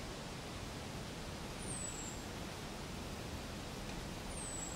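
Steady background hiss with a short, thin, very high whistle that falls slightly in pitch, heard about two seconds in and again near the end.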